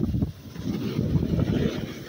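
Wind buffeting the microphone during a downhill run on snow: a low, gusty rushing rumble that dips briefly just after the start, then swells again.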